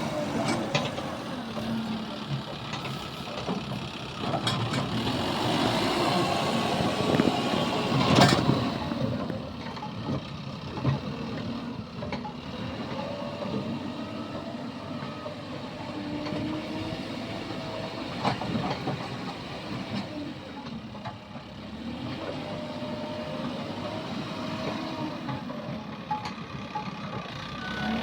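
Diesel engines of heavy machinery running and varying in pitch, with a sharp metallic knock about eight seconds in.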